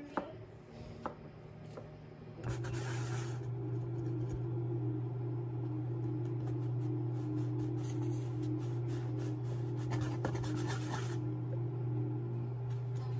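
Hands working soft dough in a bowl, then a drinking glass pressed and twisted into rolled dough on a counter to cut donut rounds: scratchy rubbing and light knocks. From about two seconds in, a steady low hum runs underneath.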